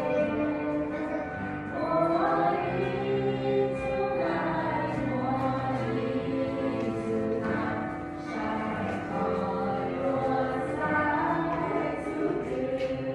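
Music with a choir singing held, multi-voiced notes that change every second or so.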